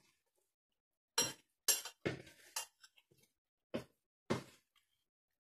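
A metal spoon clinking and scraping against a stainless steel mixing bowl as a soft mixture is stirred, about six separate irregular clinks.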